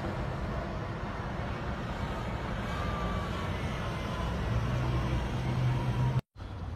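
Steady low rumble of city traffic, which cuts off abruptly near the end.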